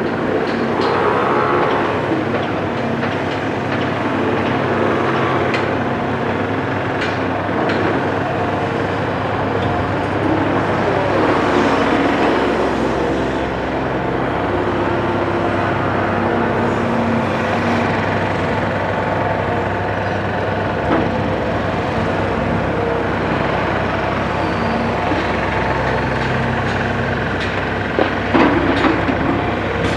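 Caterpillar 336 hydraulic excavator's diesel engine running under working load, rising and easing in pitch as the boom digs and swings, with a few sharp clanks. Near the end a bucketful of sand drops into the steel body of a dump truck with a louder rush and knock.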